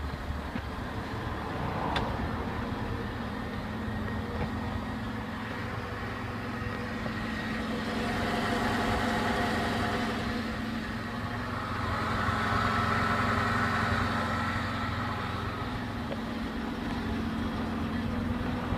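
Car engine running steadily with no knock, which the owner credits to treatment with the Suprotec oil additive. The engine gets louder twice for a few seconds.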